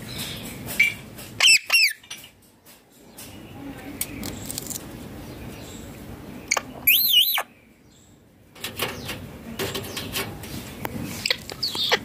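Indian ringneck parakeet giving two loud, shrill screeches with a wavering pitch, about five seconds apart, with scattered small clicks between them.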